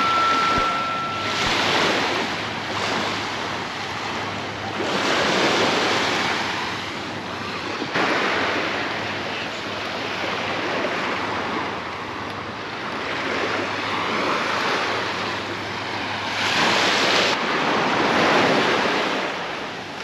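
Small Mediterranean waves washing onto a sandy beach, the surf swelling and easing every few seconds, with wind on the microphone.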